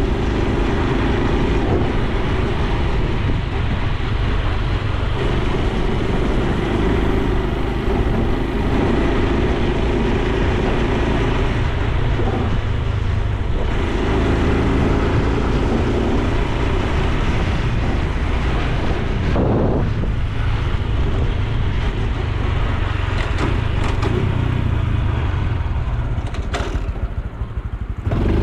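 Honda Super Cub C125's single-cylinder four-stroke engine and exhaust running while riding, its note changing a few times with the throttle. The level eases off briefly near the end.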